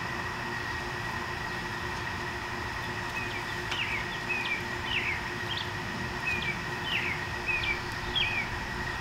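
A songbird calling a run of short, sharp chirps, about two a second, starting about three seconds in, over a steady background hum.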